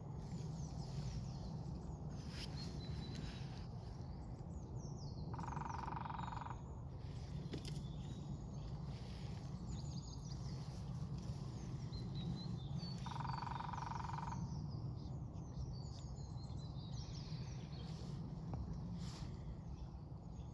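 Lesser Spotted Woodpecker drumming on a dead snag: two short even rolls of about a second each, several seconds apart. Small songbirds chirp and call throughout over a steady low rumble.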